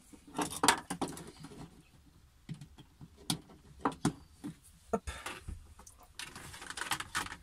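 Hands handling and bundling the loose cables and plastic connectors of a reversing-sensor kit: scattered light clicks and rustles.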